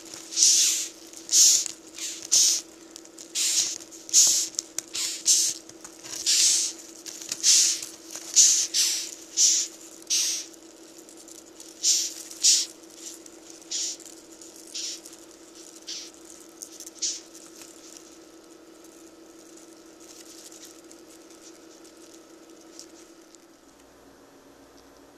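Ten-lined June beetles giving their short, breathy "ffft" hisses, one about every second, made by rubbing the abdomen against the wing covers. The hisses thin out after about twelve seconds and stop at around eighteen, leaving a steady low hum.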